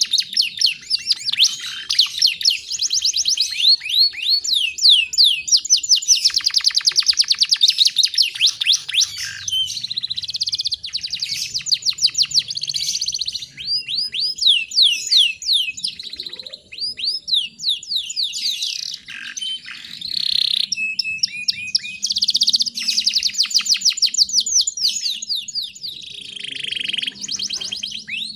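Domestic canary song: fast rolling trills of rapidly repeated sweeping notes, in phrases a few seconds long broken by short pauses.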